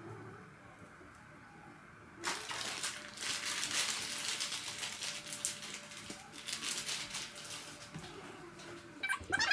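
Shower cap rustling and crinkling as it is pulled on over the hair, starting about two seconds in and dying away near the end. A louder, sharper sound starts just at the end.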